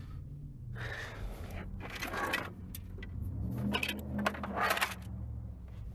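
Small metal tools and keys scraping and clicking in the ignition lock cylinder, in short uneven bouts, while trying to extract a broken key fragment. A low steady hum runs underneath.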